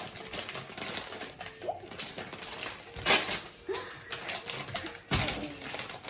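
Irregular rustling and small clicks of hands handling packets and items on a table, with louder crackles about three and five seconds in.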